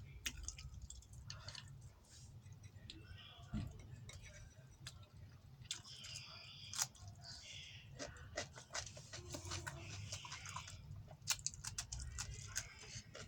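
A person eating close to the microphone: chewing and wet mouth sounds with many small scattered clicks, over a low steady hum.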